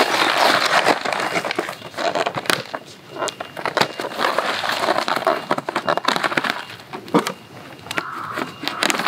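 Plastic film wrapping on a packaged disposable instant grill crinkling and crackling as it is handled and turned over in the hands.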